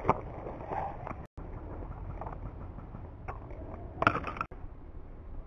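Rustling and short knocks of clothing and gear as a player moves close to a body-worn camera over leaf litter, the sharpest knock about four seconds in. The audio cuts out completely for a moment twice.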